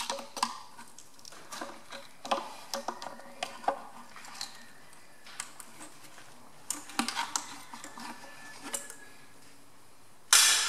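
Scattered light metallic clicks and knocks as a screwdriver works the hose-clamp screw and the rubber bottom radiator hose is twisted loose on a tractor water pump. Near the end there is one short, loud scuffing noise.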